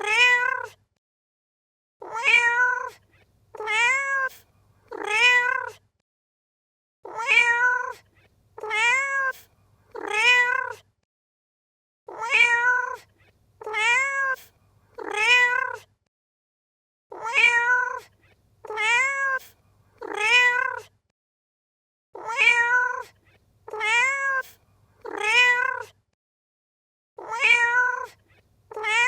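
A cat meowing in sets of three, each meow rising and then falling in pitch. The same set repeats in a loop about every five seconds, with silence between.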